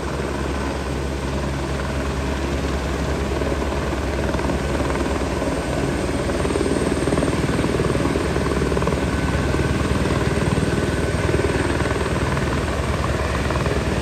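Helicopter hovering low, its rotor chop steady and growing a little louder over the first half.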